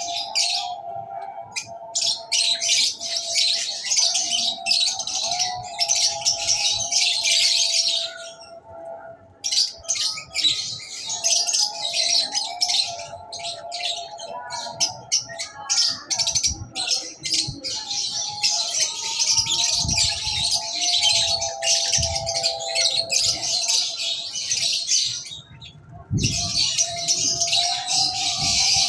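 Many small birds chirping densely and rapidly, in long stretches that break off abruptly twice, over a steady wavering melody lower down.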